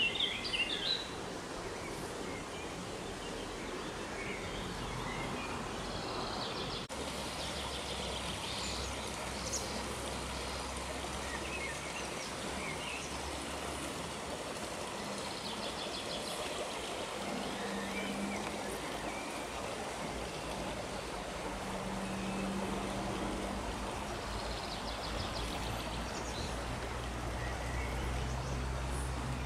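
Outdoor park ambience: a steady rushing hiss with songbirds chirping now and then, and a low hum in the background that comes and goes.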